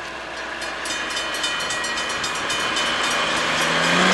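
Rail-mounted maintenance-of-way machine coming up the track, its engine and wheels growing steadily louder with fast, even clicking. The engine note rises in pitch near the end as it reaches the listener.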